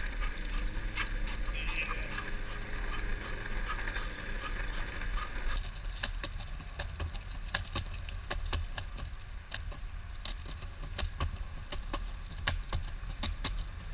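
Longboard wheels rolling along pavement with a steady low rumble and scattered sharp clicks and crackles. About six seconds in the clicks grow denser as it rolls along a sidewalk strewn with fallen leaves.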